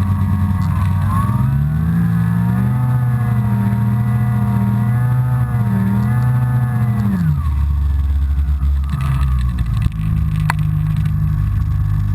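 Snowmobile engine revving up and holding high revs that rise and dip, then dropping back to a steady idle about seven seconds in. A single sharp click comes near the end.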